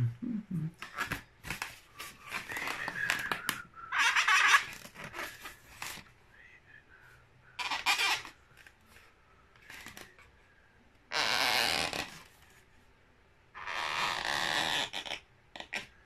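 Felt-tip marker squeaking and rubbing on a latex balloon as the balloon parrot is drawn on, in several separate strokes, the longest about a second and a half. Small clicks and rubs of the balloon being handled come between the strokes.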